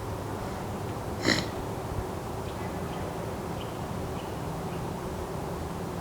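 Forest ambience: a steady low rumble and hiss. About a second in comes one short, sharp burst of noise, the loudest sound here, and a few faint, short high chirps follow in the second half.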